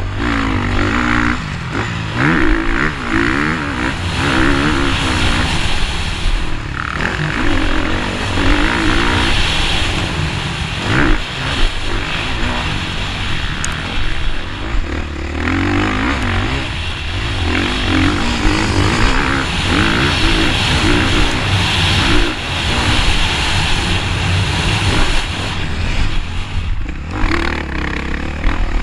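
Off-road dirt bike engine ridden hard, revving up and easing off again and again as the throttle opens and closes, with a few short drops where the throttle is cut. Heard from a helmet-mounted camera, with a steady low rumble of wind on the microphone.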